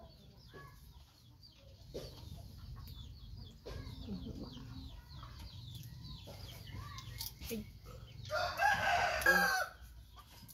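A rooster crows once, loud, for over a second near the end. Before it there are only faint clicks and rustling.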